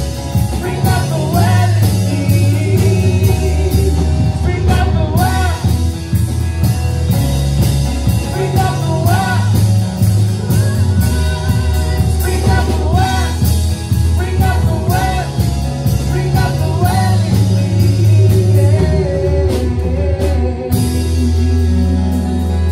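Song with a lead voice singing over guitar, bass and drum kit, with steady drum hits, in a rock-style band arrangement.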